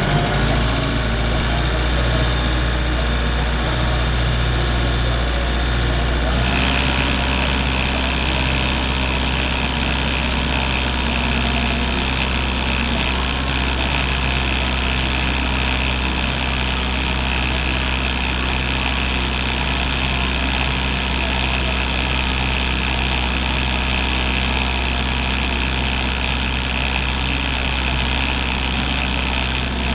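Mitsubishi MT23 compact tractor's diesel engine running steadily while pulling a harrow through tilled soil. About six and a half seconds in, the engine note steps to a brighter, higher sound and holds there.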